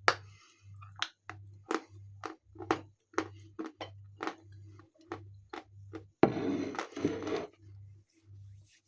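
Close-up crunching of a person chewing a lump of Khrapovsky edible chalk: short sharp crunches two or three times a second, with a louder, longer grinding crunch of about a second just past six seconds in. The chalk is one that she feels has not yet lain long enough to dry out.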